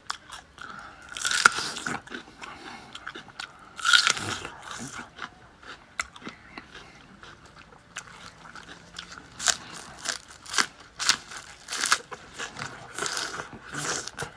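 Mukbang eating: crisp food bitten and chewed close to the microphone, a string of sharp crunches throughout, the two loudest bites about one and a half and four seconds in.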